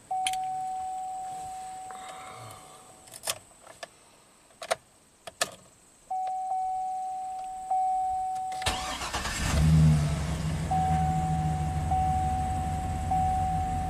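Silverado 2500HD's engine cranking briefly and catching about two-thirds of the way through, then settling into a steady idle. Before it, a dashboard warning chime sounds as a steady tone, with a few sharp clicks around the key. The chime returns over the idle with a short pip about once a second.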